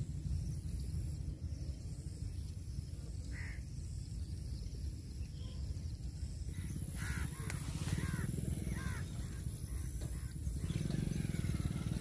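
Outdoor ambience: a steady low rumble of wind on the microphone, with a few short bird calls between about seven and nine seconds in.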